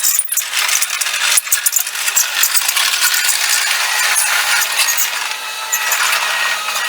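Mustang MTL25 compact track loader at work in sped-up footage: its engine and tracks come out as a fast, high-pitched metallic clatter and rattle.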